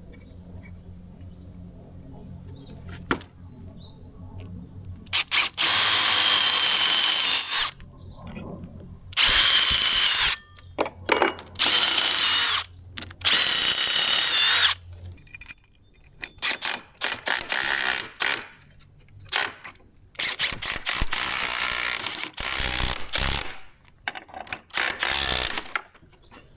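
Power drill driving 3/8-inch lag screws into wood: four runs of a second or two each, then many short stop-start bursts as the screws are snugged down.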